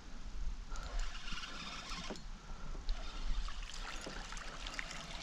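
A hooked walleye splashing at the surface as it is reeled in on a fishing line, over a steady low rumble, with faint scattered clicks.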